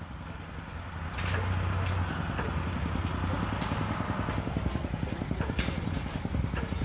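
Engine of heavy construction machinery running steadily, a little louder from about a second in, with a few light metallic clinks of steel rebar and scaffolding being handled.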